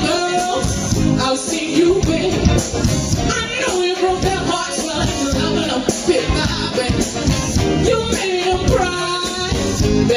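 Cover band playing upbeat music with a steady beat and a singer's voice.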